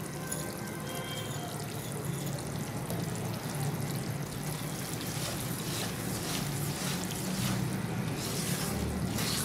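Thick starch-and-ghee mixture bubbling and sputtering in a non-stick kadai, with a silicone spatula stirring through it in short strokes from about halfway through.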